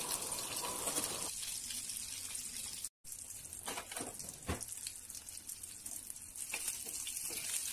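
Oil sizzling steadily as besan-coated stuffed bitter gourds shallow-fry in a pan, with the spatula scraping in the first second or so as they are turned. The sound cuts out briefly about three seconds in, and a few faint clicks follow.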